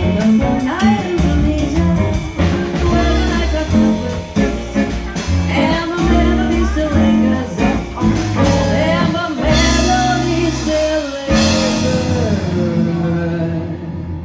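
Live jazz band playing: a singer's line over guitar, piano, bass and drums. About eleven seconds in there is a final cymbal-backed hit, and the band rings out and fades.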